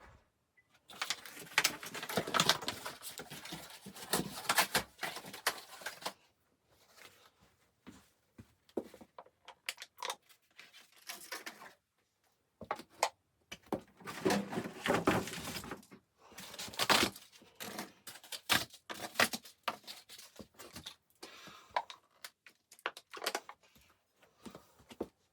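Close rustling, scraping and knocking of things being handled in a small enclosed space, coming in irregular bouts with sharp clicks and thuds between.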